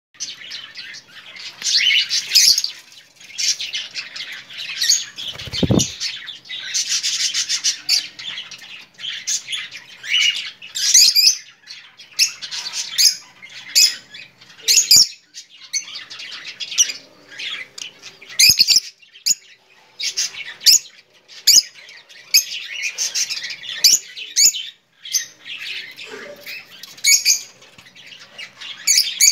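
Rosy-faced lovebirds chirping and squawking, shrill calls one after another with short pauses between, and a dull thump about six seconds in.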